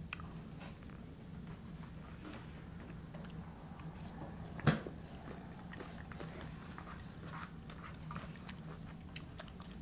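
Quiet close-miked eating: a fork scraping and tapping in a burrito bowl and mouth sounds of chewing, with faint clicks throughout and one sharp click about halfway through, over a faint steady hum.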